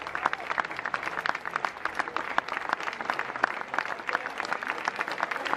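Spectators applauding: a steady spatter of many hands clapping without a break.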